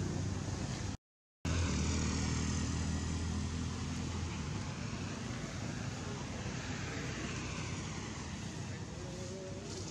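A motor vehicle engine running nearby over steady outdoor background noise, loudest about two to four seconds in and then fading. The sound drops out completely for a moment about a second in.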